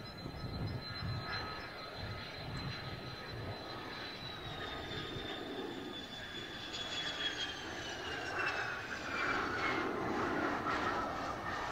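Mitsubishi F-2's F110 turbofan jet engine whining at landing-approach power as the fighter comes in with gear down. Its high whine falls steadily in pitch as the jet passes, over a rumble that grows louder in the last few seconds.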